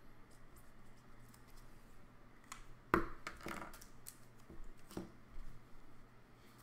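Trading cards in clear plastic sleeves and holders being handled on a tabletop. There is a sharp tap about three seconds in, then a few lighter clicks and plastic rustles.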